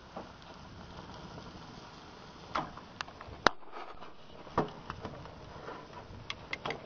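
Steaks sizzling on a propane gas grill, with a string of sharp metal clacks as a spatula knocks against the cooking grates, the loudest about halfway through.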